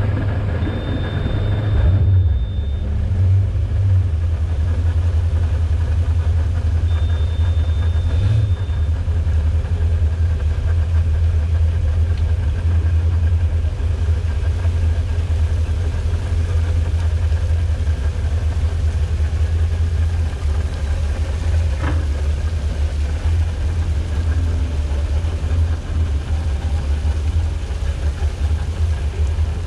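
MerCruiser 7.4 inboard engine of a Sea Ray Sundancer idling: a steady low rumble.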